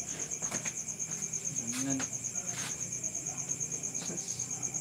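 A cricket trilling steadily: a high note in rapid, even pulses. A few light clicks and rustles from clothes and hangers being handled.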